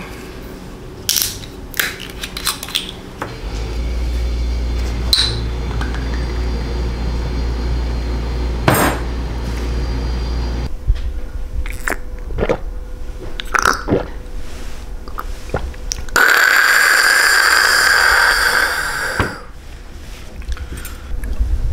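Clinks and knocks of a glass soju bottle, shot glass and dishes on a table. A steady low hum runs through the middle, and a loud hiss lasts about three seconds near the end.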